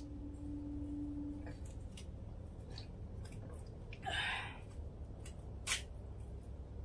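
Faint handling sounds of tablets being taken with water from a steel bowl: a few small clicks, a brief rustle about four seconds in and a sharp click near six seconds, over a low steady hum.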